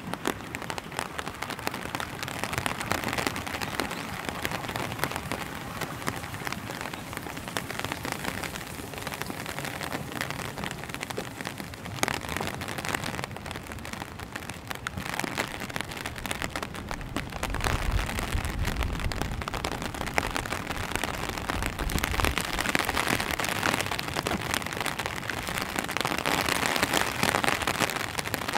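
Steady rain pattering on wet pavement and foliage, a dense patter of drops. A low rumble comes in about eighteen seconds in and lasts a few seconds.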